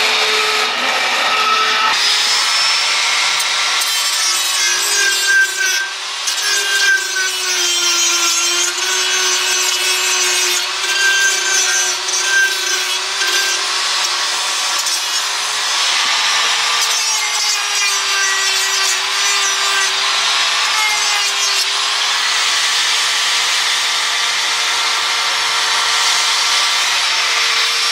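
High-speed die grinder with a burr grinding out a bolt hole in a steel plate, running continuously with a steady whine whose pitch sags and recovers as the bit bites into the metal. The sound changes about two seconds in.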